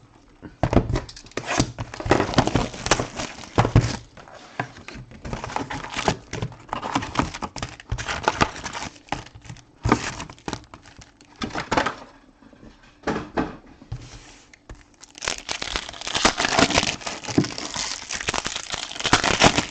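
Plastic wrapping crinkling and tearing by hand as a sealed box of Topps Chrome trading cards and its packs are opened, in irregular rustling bursts that get busier and louder about fifteen seconds in.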